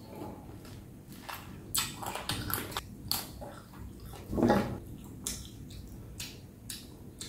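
Close-up chewing and wet mouth smacks of someone eating pickled deboned chicken feet: short sharp clicks scattered throughout, with one louder mouth sound about four and a half seconds in.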